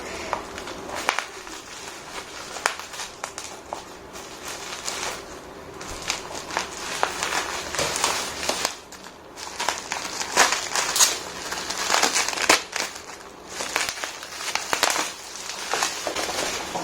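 Packaging crinkling and rustling in the hands while a humidifier is unpacked from its box, with many small crackles and light knocks; busiest in the second half.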